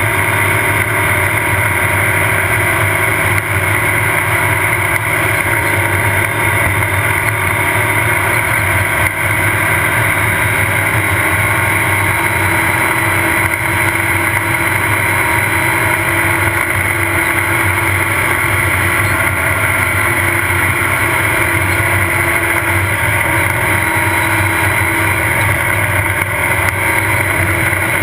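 Off-road race car's engine running steadily at speed on a dirt road, its pitch held level, with road noise, heard from on board.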